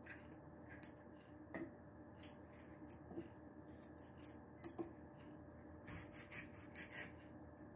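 Knife slicing a cucumber on a cutting board: faint, scattered knocks of the blade through the cucumber onto the board, a few in quick pairs, over a low steady background hum.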